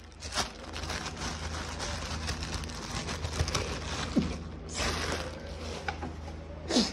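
Rummaging in an open refrigerator: scattered small clicks and knocks of containers and shelves being handled, with a burst of rustling about five seconds in. Near the end comes a short squeak that falls in pitch.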